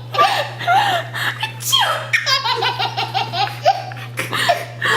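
A baby laughing hysterically in repeated bursts of belly laughter, with a quick run of 'ha-ha-ha' pulses in the middle.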